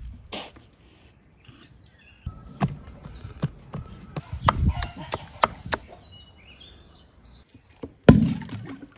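A quick run of short knocks and taps as hands press and pat dough on a floured wooden board, with birds chirping between them. There is a short hiss just after the start and a loud thump near the end.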